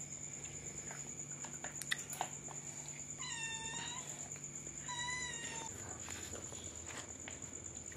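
Domestic cat meowing twice, two clear drawn-out meows about three and five seconds in, the second shorter. A sharp click sounds a second or so before the first meow.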